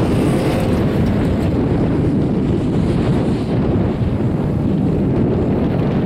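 Strong wind buffeting the microphone, a steady, heavy low rumble of wind noise.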